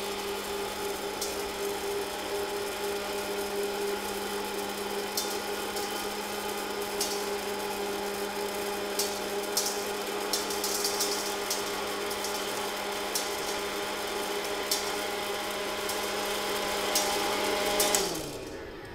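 Hot-air popcorn popper running with a steady fan hum, with scattered light clicks of unpopped heirloom kernels blown out into the steel bowl: the load of small, light kernels is too little to hold them down, so the air throws them out before they pop. Near the end the fan winds down as the popper is switched off.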